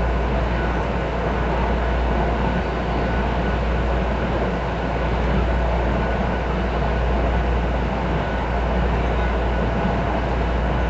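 Miami-Dade Metrorail train running steadily along its elevated track, heard from inside the car: a steady deep rumble of wheels on rail with a faint steady whine above it.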